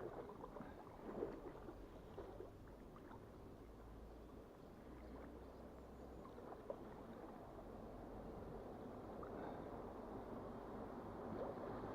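River water running and splashing around an inflatable canoe on the move, with scattered small splashes.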